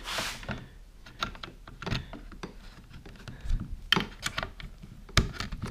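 Scattered plastic clicks and knocks as cable connectors are plugged into the back of a Lowrance Hook4 fish finder and the unit is handled on its mount, with a short rustle at the start and the sharpest clicks about four and five seconds in.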